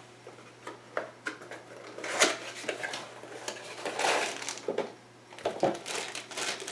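Hand-handling noises: irregular clicks and knocks of plastic parts, with bursts of rustling from the small package a Magpul MOE pistol grip comes in, loudest about two, four and five and a half seconds in.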